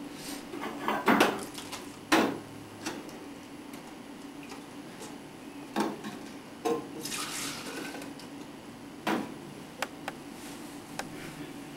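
Scattered knocks and clinks of small objects being handled, with a short hiss about seven seconds in.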